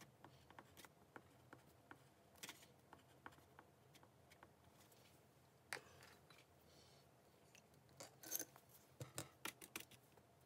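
Faint scratching and light ticks of a crayon writing on paper, with a cluster of sharper taps and clicks near the end.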